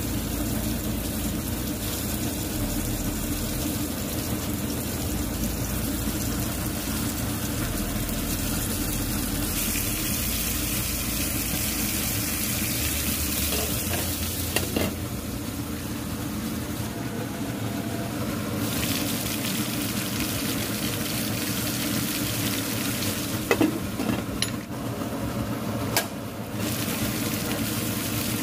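Lamb steaks frying in a pan: a steady sizzle that grows louder and brighter for several seconds about a third of the way in. A couple of sharp clicks come near the end.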